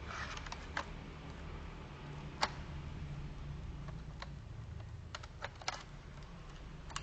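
Scattered light clicks and taps as a laptop hard drive, its mounting bracket and small screws are handled during reassembly, irregularly spaced, with the sharpest click about two and a half seconds in and a quick cluster near the end.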